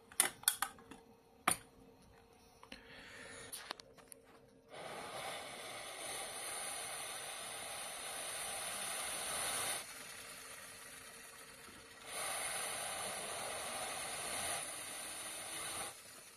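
A few clicks and knocks as the beverage-can model jet engine is handled, then a steady whirring hiss as it runs with its can-metal turbine spinning, in two stretches of about five and four seconds with a quieter gap between them.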